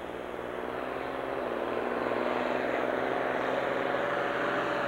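Farm stock diesel tractor running at full throttle under heavy load while dragging a weight-transfer sled down the pulling track. It grows louder over the first two seconds, then holds steady.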